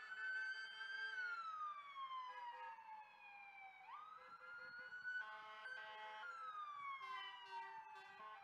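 Emergency vehicle siren wailing: the pitch climbs quickly, then glides slowly down, twice. A brief steady horn-like tone sounds about five to six seconds in.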